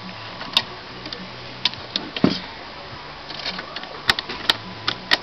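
Scattered light clicks and knocks of metal parts being handled inside a desktop computer's steel case while the CPU heat sink's screws are loosened, with a heavier knock about two seconds in and a few sharp clicks near the end.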